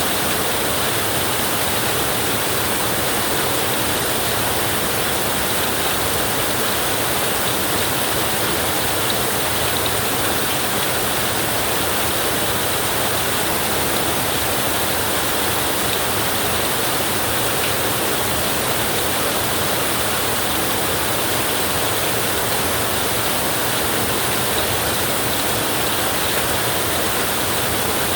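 Flowing river rushing in a steady, unbroken wash of water noise.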